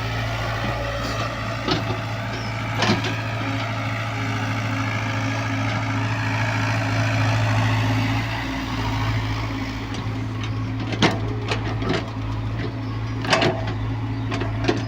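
Hyundai excavator's diesel engine running steadily, with scattered knocks and clanks that come more often in the last few seconds.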